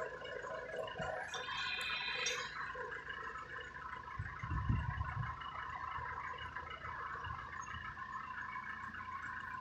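310A backhoe running with a steady droning tone, a brief higher squeal about a second and a half in, and a short low rumble near the middle.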